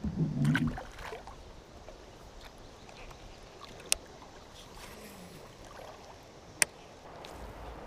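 Steady sound of river water running around a drift boat, broken by two sharp clicks or knocks, one about four seconds in and another about two and a half seconds later.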